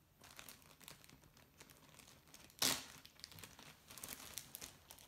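A clear plastic zip-top bag crinkling as it is handled and its zipper is worked, with one louder rustle about two and a half seconds in.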